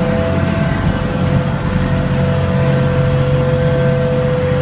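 Passenger ferry boat's engine running steadily: a low drone with a steady higher whine over it.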